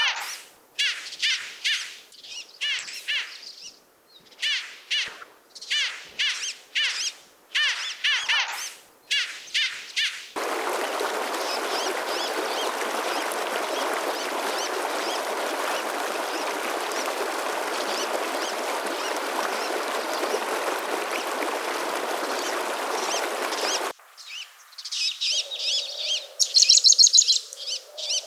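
Spliced outdoor recordings. First a bird calls over and over, about one short chirp a second. About ten seconds in this cuts to a steady rushing noise. Near the end it cuts again to a different bird singing quicker, brighter notes over a low steady hum.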